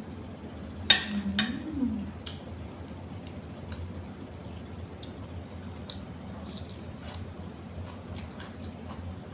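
Person eating: a sharp clack about a second in, a brief hummed "mm" that rises and falls, then scattered small clicks and taps over a steady low hum.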